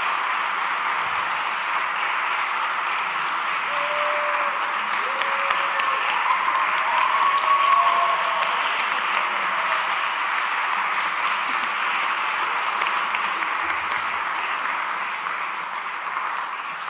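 Audience applauding steadily, swelling a little around the middle with a few voices whooping, then starting to die away near the end.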